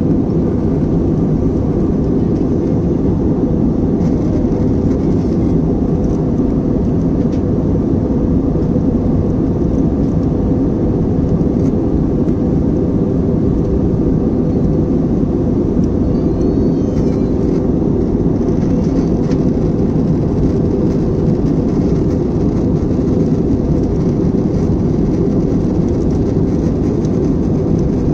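Steady cabin noise of a jet airliner in cruise flight: engine and airflow noise, deep and even, with a faint steady tone in it.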